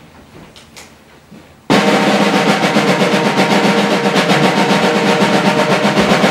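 Snare drum roll: after a quiet opening it starts abruptly about a second and a half in and runs on loud and even, a suspense roll for a stunt.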